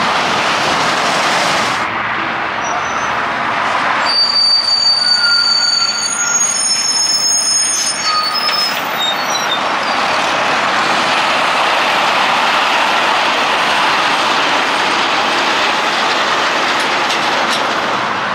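Steady heavy-vehicle traffic noise from trucks and a coach passing close by. Between about four and nine seconds in, a heavy vehicle's brakes give a series of high-pitched squeals.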